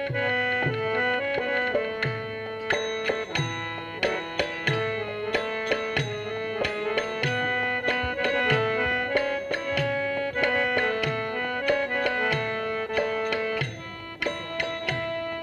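Instrumental accompaniment to a shadow puppet play. A hand drum plays a steady beat of low strokes that drop in pitch, about three every two seconds. Above it a melodic instrument plays held notes.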